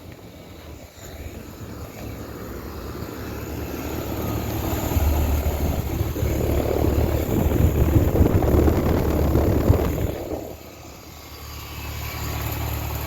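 Outdoor Gibson air-conditioning unit running in cooling mode: a steady low compressor hum under the rushing of the condenser fan. It is noisy, swelling louder over several seconds and dipping briefly near the end.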